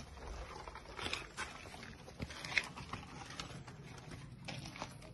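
Footsteps crunching on a wood-chip path, an uneven run of short clicks and scuffs, the loudest about two and a half seconds in.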